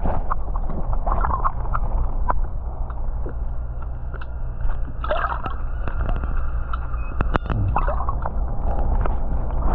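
Pool water sloshing and gurgling as a person walks backwards through it, over a steady low hum, with scattered sharp clicks.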